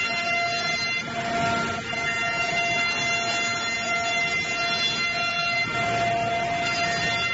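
QMB723GH wood planing machine running, a steady high whine of several pitches at once. There are brief rushes of noise about a second in and again about six seconds in.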